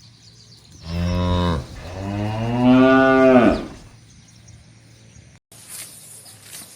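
Village cattle mooing: a short moo about a second in, then a longer, louder moo that rises and falls in pitch.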